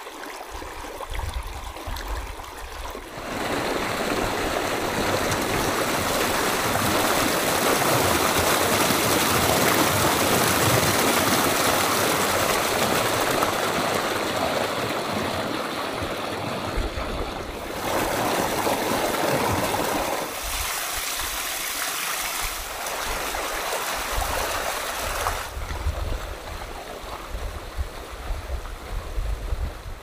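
Shallow wadi stream of rainwater rushing and splashing over rock slabs and small cascades. The sound of the water changes abruptly a few times, louder and fuller in the middle.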